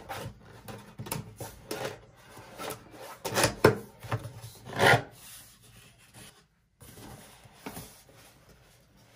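Cardboard camera box being opened by hand: flaps rubbed and scraped as they are pried loose and folded back, with two louder scrapes about three and a half and five seconds in, then quieter handling.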